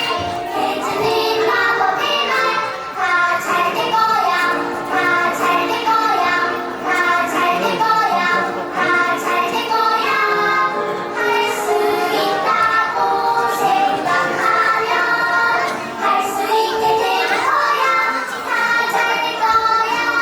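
Young children singing together over a recorded backing track.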